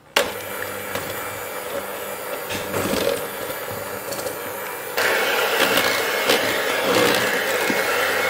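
Electric hand mixer running, its wire beaters whisking cocoa muffin batter in a stainless steel bowl. It switches on suddenly and gets louder about five seconds in.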